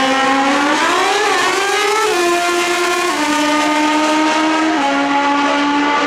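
Pro Street drag motorcycle's engine at full throttle on a drag-strip pass. The pitch climbs for the first two seconds, then drops a step at each upshift, about three times, as the bike accelerates away down the track.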